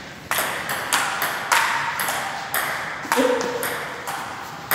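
Table tennis rally: the ball struck back and forth by rubber paddles and bouncing on the table, a quick run of sharp clicks about two a second. Each click rings on in the echo of a large bare room.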